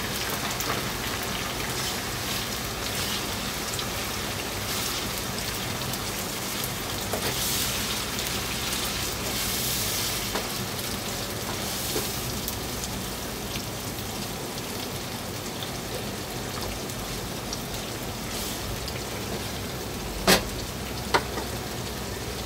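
Chicken liver frying in hot oil in a nonstick frying pan: a steady sizzle. Two sharp knocks near the end.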